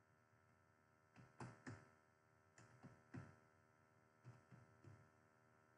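Faint computer keyboard keystrokes, in three short clusters of taps about a second and a half apart.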